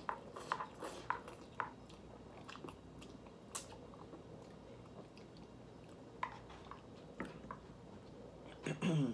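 A person slurping and chewing instant ramen noodles eaten with a fork: small wet mouth clicks and slurps, most of them in the first couple of seconds, then quieter chewing. A short vocal sound near the end is the loudest moment.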